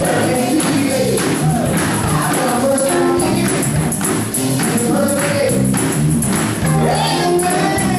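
Gospel choir singing with a male lead vocalist on a microphone, backed by electric guitar and a tambourine on a steady beat.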